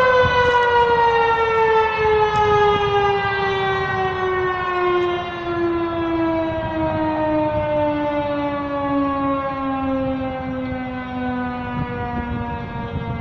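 Tornado warning siren winding down at the end of its 12 o'clock sounding: one long tone sliding slowly and steadily lower in pitch while gradually fading.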